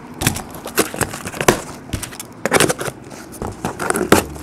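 Cardboard case being cut open with scissors and handled: a run of irregular crackles, scrapes and light knocks as the tape is cut and the cardboard flexes.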